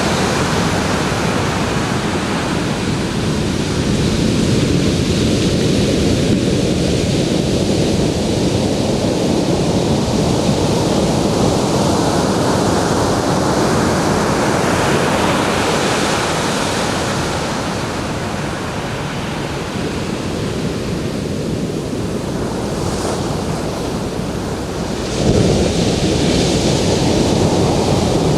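Ocean surf washing onto a beach in a continuous rush that swells and ebbs, with a wave breaking suddenly and louder near the end.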